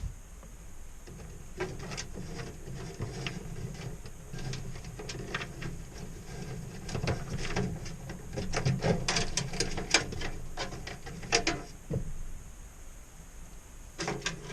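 Scattered clicks, knocks and rattles of hard objects being handled, over a low steady hum, busiest and loudest from about seven to eleven seconds in, with a last short cluster near the end.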